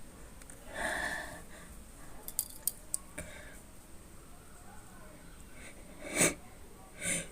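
A person sniffing powder up the nose to bring on a sneeze: a sharp sniff about a second in, a few light clicks a little later, then two quick sharp in-breaths near the end as the sneeze builds.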